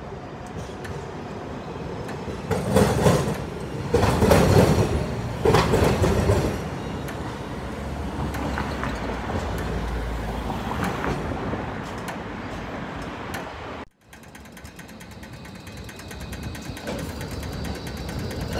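Trams and road traffic at a city tram junction: wheels rumble and clatter over the rail crossings in three loud passes in the first several seconds, then a steadier drone. After a brief break, a tram approaching grows louder near the end.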